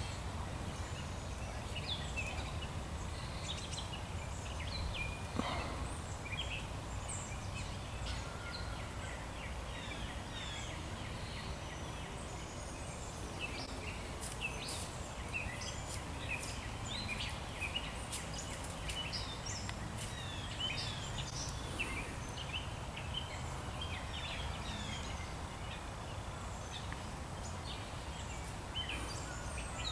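Woodland birds chirping and singing: many short, high calls overlap, busiest in the middle, over a steady low rumble.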